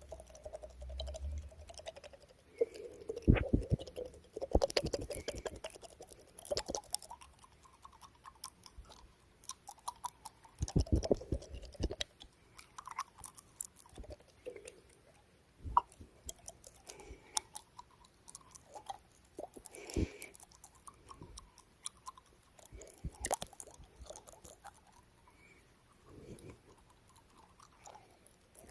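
Close-miked ASMR mouth sounds: irregular clusters of wet clicks, smacks and tongue sounds, with brief quieter gaps between them.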